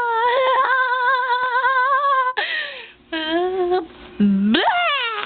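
A high voice holding one long, slightly wavering note for about two seconds. A short noisy burst follows, then shorter notes and a quick call that rises and falls near the end.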